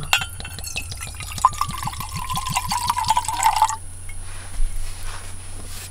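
Liquor glugging out of a glass bottle into an enamel mug: a steady pour with a rapid run of glugs. It stops about four seconds in.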